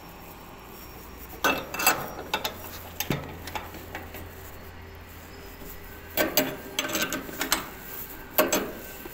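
Metal clinking and scraping of hand tools against a steel tarp-rope tensioner and its fittings on a dump truck body. It comes in two bursts of sharp clicks, about a second and a half in and again from about six seconds in.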